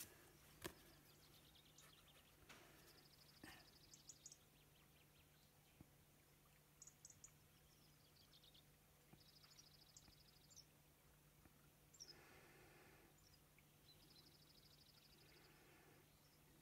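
Near silence: faint room tone with a low steady hum, and a few faint bird chirps and short rapid trills.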